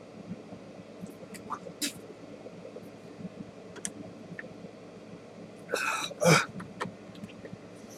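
A man clearing his throat with two short rough coughs about six seconds in, his throat burning from swallowing apple cider vinegar. Faint sniffs and breaths come before them.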